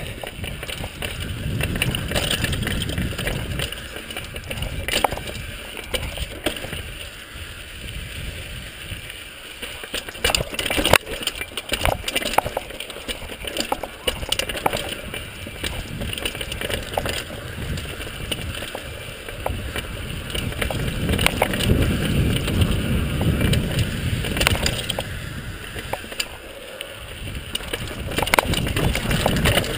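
Mountain bike descending a rough dirt and rock singletrack: wind buffeting the microphone in swelling gusts, tyre noise on the dirt, and frequent sharp rattles and clacks from the bike jolting over rocks.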